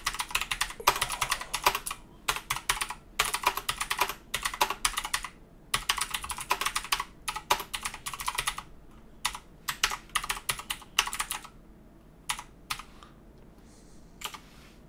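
Typing on a computer keyboard: quick runs of keystrokes entering a line of text, broken by short pauses. The keystrokes thin out to a few single taps about twelve seconds in, then stop.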